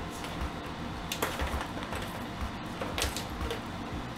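A kitten swatting a plastic tower-of-tracks cat toy: the ball rolls and rattles around the plastic track rings, with a few sharp clicks, the clearest about a second in and about three seconds in.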